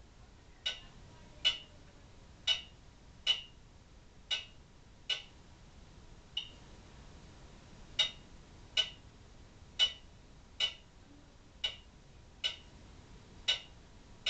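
Kuempel tubular-chime clock movement ticking about once a second, the ticks unevenly spaced with short and long gaps alternating. About halfway through, one tick comes weak and a beat goes missing. This is a movement that will not keep running.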